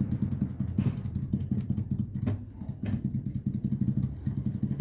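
Rapid, irregular clunking and rattling from the front shock absorber of a 2019 Fiat Toro as its loose rod is worked back and forth, with a few sharper clicks. The play and the noise come from the shock's internal valve, broken when the car hit a pothole.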